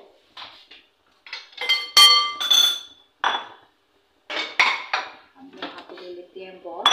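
Clear glass mixing bowl being handled and set down, giving several sharp, ringing clinks, the loudest about two seconds in and again at the end, with quieter knocks between.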